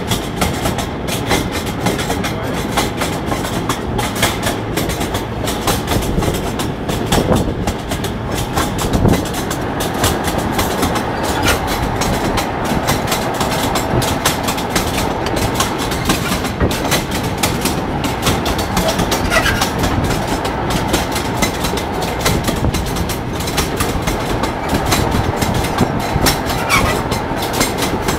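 Steel wheels of a rail draisine (motor rail trolley) clattering along the track in a steady, dense run of clicks over a continuous rumble.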